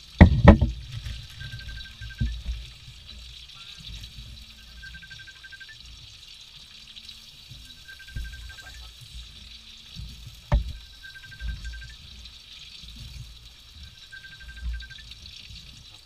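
Broth simmering and bubbling in a wok on a stove, with a steady hiss and irregular low bubbling. There is a sharp click about ten seconds in, and a faint short high trill repeats every second or two.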